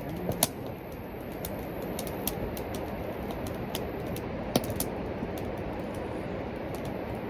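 Campfire crackling in a fire pit: sharp, irregular pops over a steady hiss.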